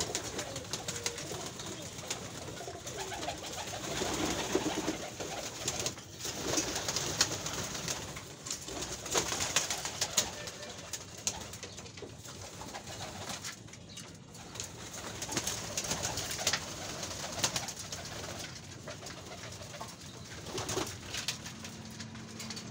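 Giribaz pigeons cooing, with wingbeats and many short sharp clicks of beaks pecking grain from a wooden feed trough.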